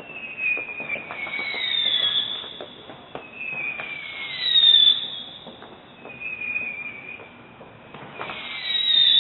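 Whistling fireworks going off in overlapping waves: about six shrill whistles, each sliding slowly down in pitch over a second or two, with faint pops and crackles between them.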